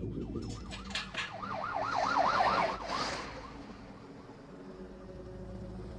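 Emergency vehicle siren in a fast up-and-down yelp, growing louder to a peak about two seconds in and fading away a second later, as a film sound effect.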